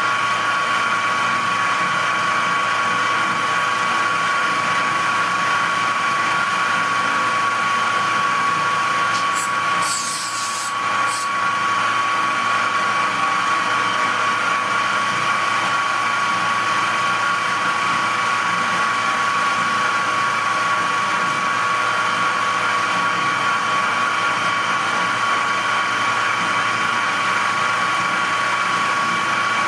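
Metal-cutting machine tool running steadily under power feed through a 1.5 mm cut, with a constant whine from the motor and drive over cutting noise. A brief high hiss comes about ten seconds in.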